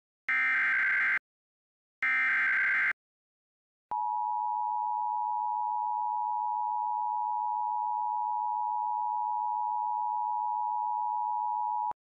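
Emergency Alert System signal: the last two bursts of the screeching digital SAME header, about a second each and carrying the code for a severe thunderstorm warning, then after a short gap the steady attention tone, held for about eight seconds and cutting off abruptly.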